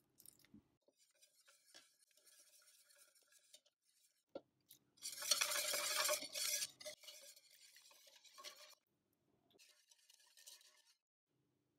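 A metal wire whisk beating matcha powder and milk in a bowl, its wires scraping and ticking against the bowl's sides. The whisking comes in spells, loudest and fastest about halfway through, then softer again near the end.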